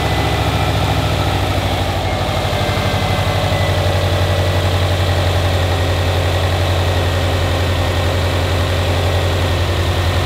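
2007 Subaru WRX STI's EJ25 turbocharged flat-four idling steadily and smoothly, freshly resealed and left running to burp air out of the cooling system.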